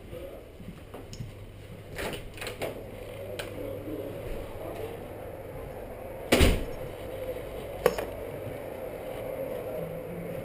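Steady office room noise while walking through, broken by a few light knocks about two to three and a half seconds in, one loud thump about six and a half seconds in and a smaller one near eight seconds.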